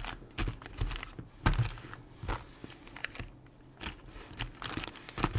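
Trading cards and pack wrappers handled on a table: scattered light taps and clicks, with a short spell of crinkling near the end.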